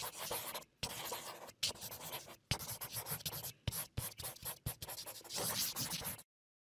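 Felt-tip marker drawing on paper: a run of short scratchy strokes broken by brief pauses and a few sharp taps. It cuts off suddenly near the end.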